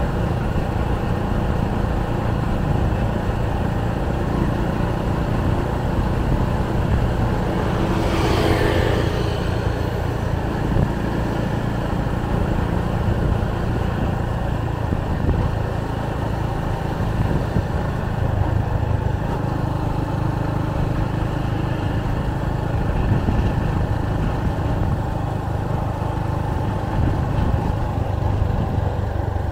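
Steady street-traffic noise of cars and motorbikes, with one louder vehicle passing about eight seconds in.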